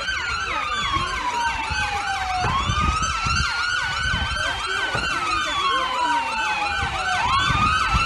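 Several British emergency-vehicle sirens sounding at once. One slow wail falls over a couple of seconds and then swoops sharply back up, twice. Under it run faster yelp sirens of about four rises a second, over a low rumble of street noise.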